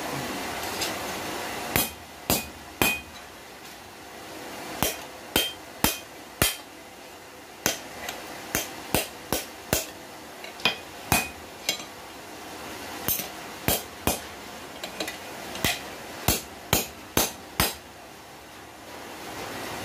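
Blacksmith's hand hammer striking a red-hot steel bar on the anvil, about two dozen blows in short runs of roughly two a second with pauses between, some leaving a brief ring. The bar is being bent to a right angle over the anvil's edge. The blows stop near the end.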